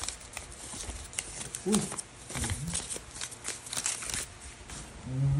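Trading cards and paper packaging being handled, giving light rustling with many small clicks and taps. There are two short voice sounds, the louder about a couple of seconds in.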